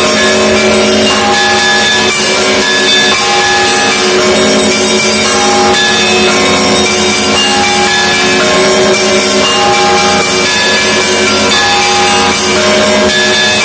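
Russian Orthodox church bells ringing together in a continuous peal: small bells strike short, repeated high notes over the sustained ringing of the larger bells.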